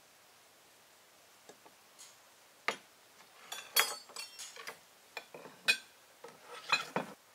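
A run of light, irregular clicks and knocks of hard objects, clustered over the second half.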